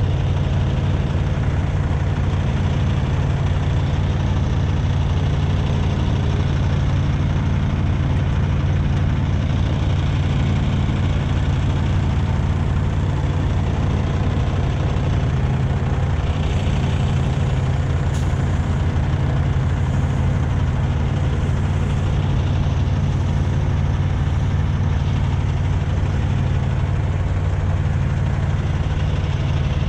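Semi truck's diesel engine idling steadily, left running so the truck has power steering while it is winched free.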